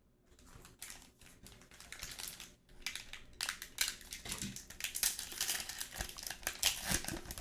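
Crinkling and rustling of a foil trading-card pack being opened and its cards handled, with many small clicks. It starts faint and grows louder and busier from about halfway in.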